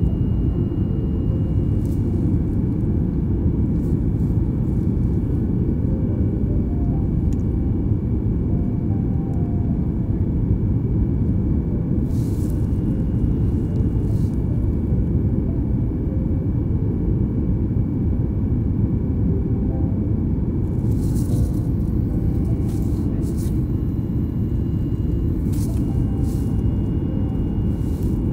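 Jet airliner cabin noise during the climb after take-off: a steady, deep rumble of the engines and rushing air heard from a window seat over the wing, with a few light clicks or rattles.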